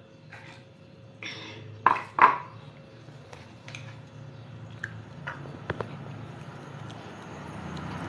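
Clinks and knocks of a drinking glass and plates on a tiled floor: a couple of short scrapes, then two loud knocks about two seconds in, followed by scattered light taps and clicks.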